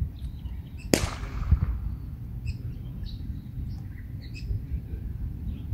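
Small birds chirping over a low, uneven rumble, with one sharp crack about a second in, the loudest sound, followed by a duller knock half a second later.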